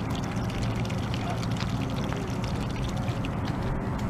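Geese honking in short, scattered calls over a steady low rumble.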